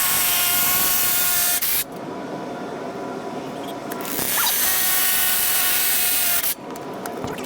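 Power drill boring into concrete with a 3/8-inch concrete drill bit, in two runs with a pause between: the first stops just before 2 seconds in, and the second runs from about 4 to 6.5 seconds.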